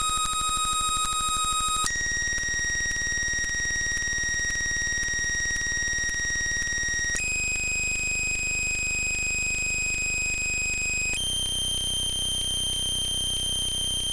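A shrill, steady electronic buzzing tone, made of sound effects sped up so far that they merge into one pitch. It jumps abruptly higher three times: about two seconds in, about seven seconds in, and about eleven seconds in.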